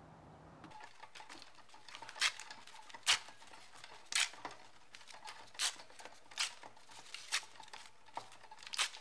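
Slow footsteps on carpet, about one step a second, over a faint steady room hum.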